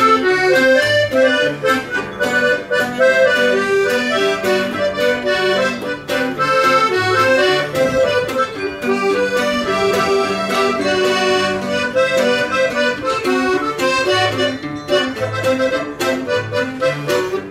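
A diatonic button accordion playing a polka melody, accompanied by a strummed bajo sexto keeping a regular bass-and-chord beat.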